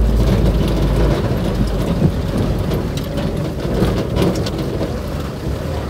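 Fire truck cab noise: the engine's deep rumble, which drops away about a second in, under a steady rushing noise with scattered clicks and rattles.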